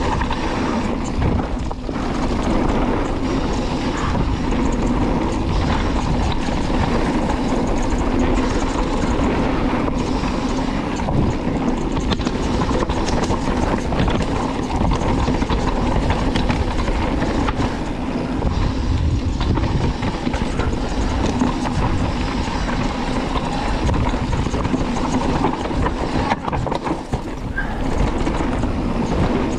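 Mountain bike descending a dirt trail: tyres rolling over rough ground, with the bike rattling and knocking throughout, and wind rushing over the microphone.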